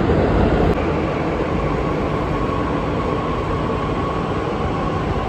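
Delhi Metro train running: a steady rumble with a faint, even high whine.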